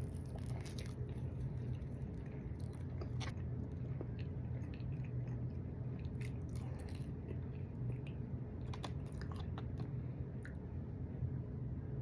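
Close-miked chewing and biting of food, with short sharp clicks scattered all through it, over a steady low hum.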